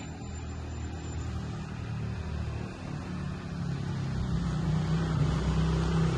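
Heavy vehicle engine running with a steady low hum that grows louder from about four seconds in.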